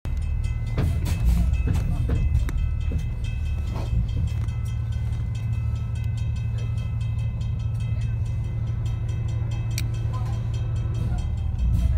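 Steady low rumble of a bus engine idling, heard from inside the bus, with a few sharp knocks in the first four seconds.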